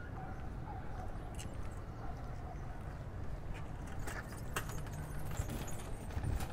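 Outdoor ambience with a steady low rumble and scattered sharp clicks and clinks, which come more often from about four seconds in.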